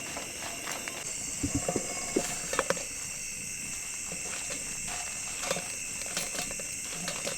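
Scattered light knocks and clicks of cooking utensils, a cluster of them about one and a half to three seconds in, over a steady high chorus of insects.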